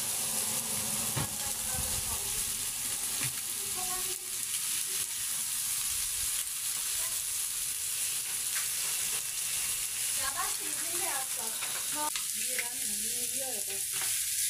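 Chicken pieces sizzling on a hot sac griddle, with a few short clicks as tongs turn the meat against the metal.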